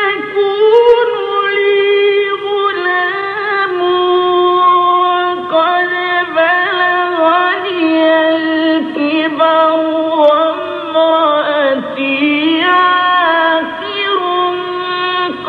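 A man reciting the Quran in the melodic mujawwad style, holding long, ornamented phrases that rise and fall in pitch. The recording is from the early 1950s and has no top treble.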